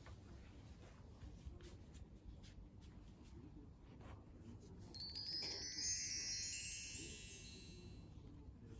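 Faint room tone, then about five seconds in a shimmering cluster of bright chime tones rings out and fades away over roughly three seconds.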